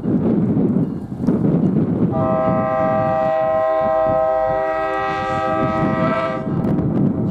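Train horn sounding one steady chord-like blast of about four seconds, starting about two seconds in, over the continuous rumble of a train.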